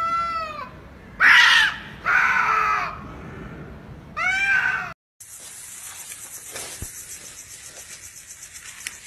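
Domestic cats yowling in a standoff before a fight: four drawn-out, pitch-bending cries in the first five seconds. The sound then cuts abruptly to a faint steady hiss.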